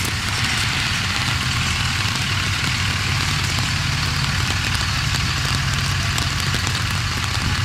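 Pickup truck engine running with a steady low rumble as the truck rolls slowly past at parade pace, over a steady hiss of rain on wet pavement.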